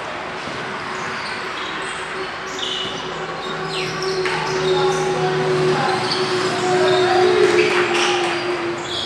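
Basketball game on a hard court: a ball bouncing and short squeaks and knocks of play, with players' voices calling out, louder in the second half, over a steady hum.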